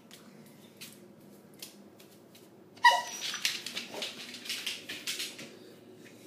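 A spaniel-type dog gives one sharp bark about three seconds in, loud and short with a falling pitch. Scuffling and rustling noise follows for a couple of seconds, with a few faint clicks before the bark.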